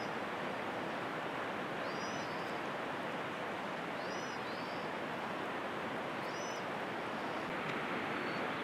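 Steady outdoor hiss with a bird's short arched chirps repeating about every two seconds, five or so in all.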